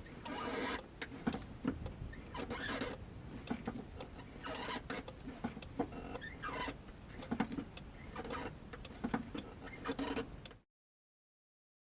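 Irregular clicks and knocks over a low rumble from a car, cut off abruptly near the end.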